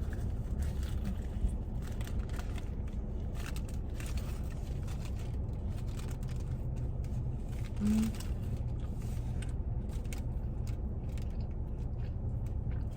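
Someone biting into and chewing a breakfast sandwich, with faint wrapper rustling and small clicks over a steady low car-cabin rumble, and a short "mm" hum about eight seconds in.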